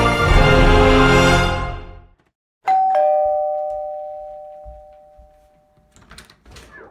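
Intro music fading out, then a doorbell chime: two tones, high then low (ding-dong), ringing and slowly dying away over about three seconds. Near the end come small handling sounds as the doorknob is turned.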